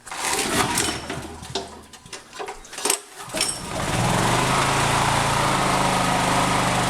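Honda EB5000 generator's 11 hp single-cylinder engine being recoil pull-started from cold: two pulls on the starter cord, catching on the second and settling into a steady run at about four seconds in.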